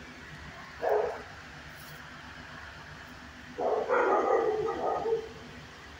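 A dog barking: one short bark about a second in, then a longer run of barks from about three and a half to five seconds in.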